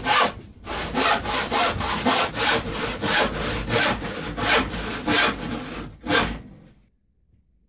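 Handsaw crosscutting an oak board by hand in quick, regular strokes, about two to three a second, stopping about six and a half seconds in.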